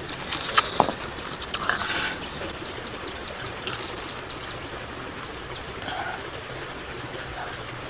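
Steady rush of a shallow, rocky stream, with a few sharp clicks and short eating sounds in the first two seconds.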